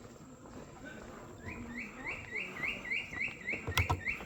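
A bird calling a quick series of about a dozen short rising notes, about four a second, with a few sharp knocks near the end.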